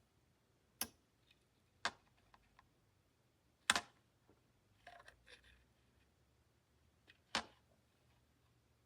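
A few sharp clicks and knocks, spaced irregularly, the third the loudest, with a patch of softer rustling knocks in the middle: plastic handling noise, with no motor running.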